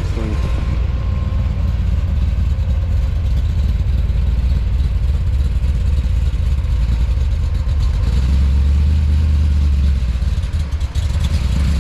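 Car engine running at idle with a steady low rumble, which swells a little about eight seconds in.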